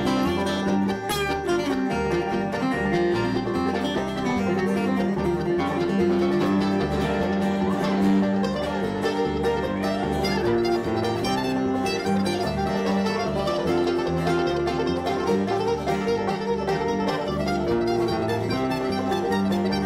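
Bluegrass band playing an instrumental passage without singing: mandolin picking over acoustic guitar and an upright bass walking from note to note.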